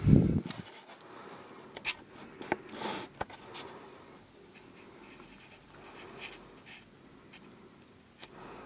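Handling noise in a small room: a dull, low thump right at the start, then a few light clicks and rustling.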